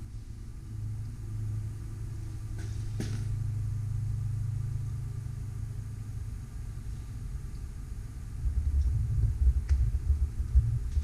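Low rumble of passing road traffic that swells and fades over several seconds, then a few irregular low bumps near the end.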